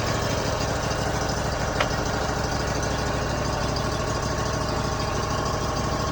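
A homemade sawmill's engine idling steadily, with one sharp click about two seconds in.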